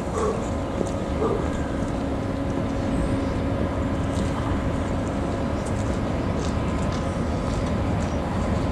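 VL8M eight-axle electric locomotive running: a steady low rumble with a faint steady hum over it.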